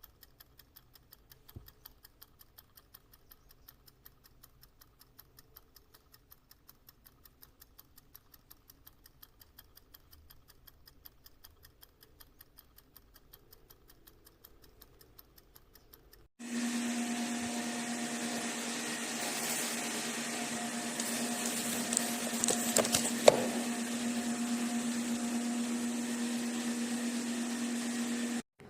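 Mechanical wind-up kitchen timer ticking faintly and evenly as it counts down. About sixteen seconds in, its bell alarm starts ringing loudly and steadily as the countdown reaches zero, then cuts off suddenly after about twelve seconds. A few sharp clicks come during the ringing.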